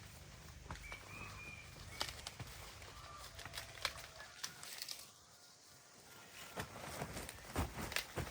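Irregular rustling and sharp crackles of dry corn plants being handled and walked through, thickest near the end, with a couple of short faint high tones in the first half.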